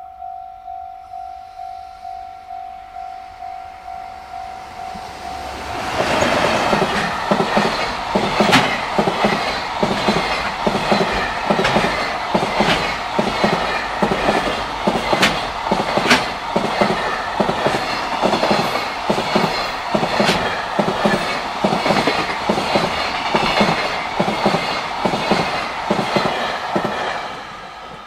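A level crossing bell rings steadily with about two dings a second. About six seconds in, a JR Freight EF210 electric locomotive and a long train of fully loaded container wagons pass close by, loud and noisy, with wheels clacking rhythmically over the rail joints. The passage drowns out the bell, which comes back as the last wagons go by near the end.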